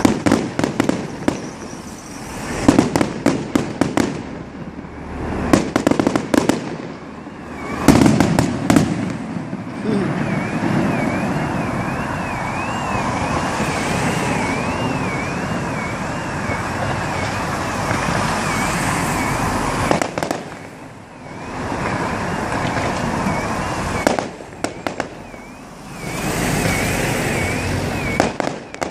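Fireworks going off: rapid bangs and crackles in quick succession, then a steadier noisy din with a high warbling tone wavering up and down over it, and another spell of crackling near the end.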